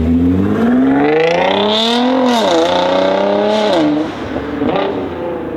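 Tuned Nissan GT-R R35's twin-turbo V6 accelerating hard, the engine note climbing, dipping once at a gear change and climbing again, with short hissing bursts near the shifts. About four seconds in it drops back to a lower note that fades away.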